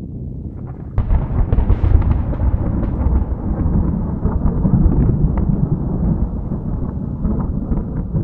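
Thunder sound effect: a sudden crack about a second in, then a loud, low rolling rumble with scattered crackles.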